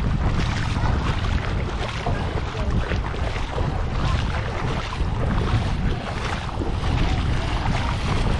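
Wind buffeting the microphone, a steady low rumble, over the wash of shallow seawater.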